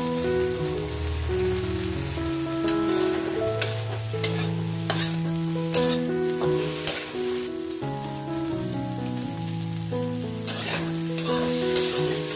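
Vegetables and spice powder sizzling in a frying pan while a spatula stirs and scrapes them, with sharp scrapes every second or so. Background music plays throughout.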